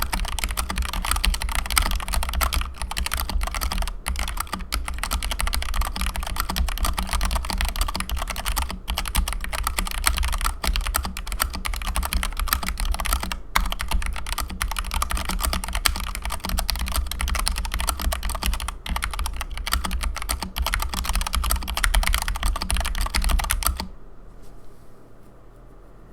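Fast continuous typing on a mechanical keyboard with stock Ajazz pink linear switches and PBT keycaps: a dense stream of key clacks. The typing stops about two seconds before the end.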